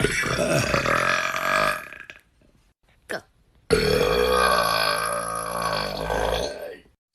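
A person burping twice, two long drawn-out burps: the first lasts about two seconds, the second about three. A brief short sound falls between them.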